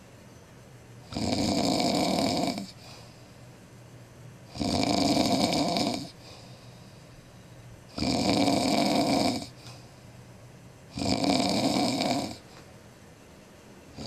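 A man passed out drunk on a couch, snoring loudly. There are four long snores, each about a second and a half, coming in a slow, even rhythm roughly every three and a half seconds, and a fifth begins right at the end.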